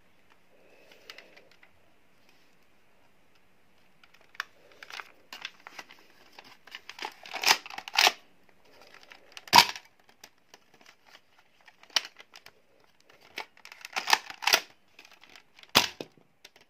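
Plastic clicks and clacks of a Nerf Mega Cycloneshock blaster being handled and its top slide worked back and forth. The clacks come in clusters from about four seconds in, the sharpest one about halfway through.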